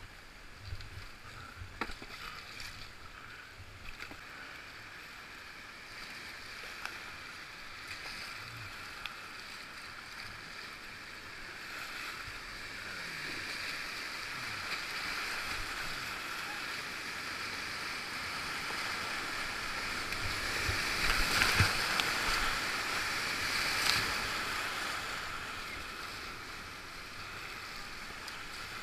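Rushing whitewater heard from a kayak, with scattered paddle splashes and knocks; the water noise swells to its loudest about three-quarters of the way through, with two sharp splashes there.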